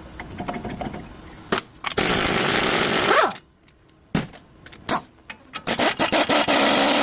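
A power tool runs in two bursts, one of about a second and one of about two seconds, and each ends with its motor winding down. Clicks and clatter of tools come before and between the bursts.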